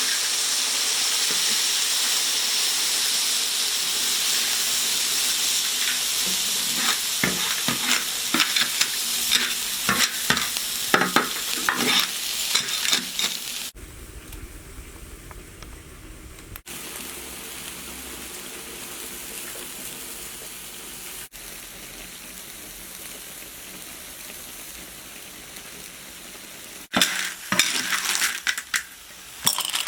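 River snails stir-fried in a wok with beer just poured in to braise: loud sizzling with the spatula and shells clattering against the wok. About halfway through it drops to a quieter, steady sizzle, and the clattering stirring returns near the end.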